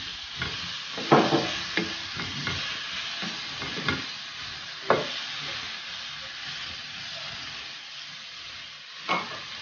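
Guava halves, tomatoes and onions sizzling in oil in a square copper-coloured pan while a wooden spatula stirs them, its strokes knocking and scraping against the pan several times in the first five seconds. After that only the steady sizzle of the frying goes on.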